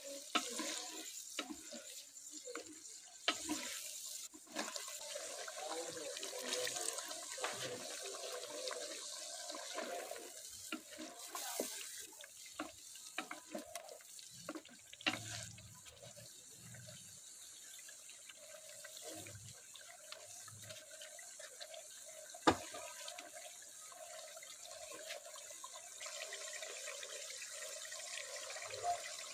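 Water running and splashing, with frequent clinks and knocks of utensils.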